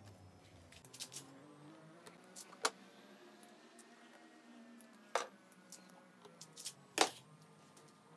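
Hands pressing masking tape down to fix an MDF drilling template to an oak board: quiet handling rustles with a few small ticks and three sharper clicks, the loudest near the end.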